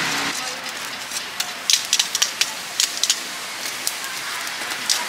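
Burning charcoal in a steel grill being shifted with metal tongs, over a steady hiss. Sharp clicks and crackles of the coals and tongs come in a quick run in the middle, with one more near the end.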